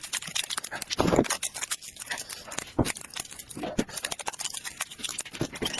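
A person chewing and lip-smacking food, a dense run of short wet clicks with a few heavier low thuds.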